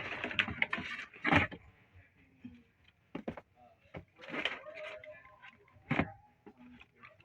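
Packaging being handled while a monitor is unboxed: rustling with several sharp knocks and clicks, the loudest a little over a second in and another about six seconds in.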